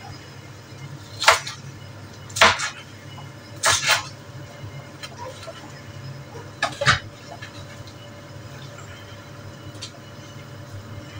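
Coughing: a single cough, then three pairs of quick, loud coughs a second or two apart, over a steady low hum.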